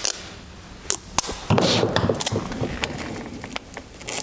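Small clicks and taps of handling, then a short rasp about a second and a half in, as a strip of tape is pulled off the roll.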